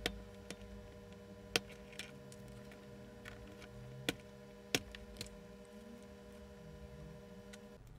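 Small sharp clicks as a blade picks at the dried glue holding the plastic knurled knob that clamps the deflection coils onto a miniature CRT's neck, four louder ones spread over the seconds, over a faint steady hum that stops near the end.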